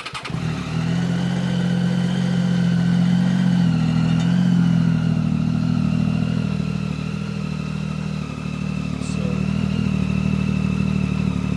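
Triumph Tiger 800 XRT's three-cylinder engine idling loud and steady through an Arrow end can with its dB-killer baffle removed, just after starting. The idle lifts slightly about four seconds in and sags briefly near eight seconds.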